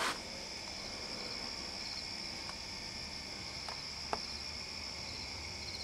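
Crickets chirping, a steady high-pitched trill with repeated short pulses. A few faint clicks come in the second half.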